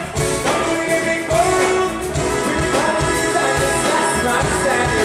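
Live band playing a song with a male lead vocal over a steady beat.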